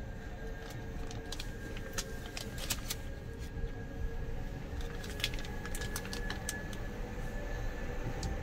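Kia Bongo EV electric truck's drive sound at low speed, a steady whine that rises slightly in pitch about halfway through and that the owner likens to an ice cream truck, over a low rumble. Scattered sharp clicks and rattles come and go.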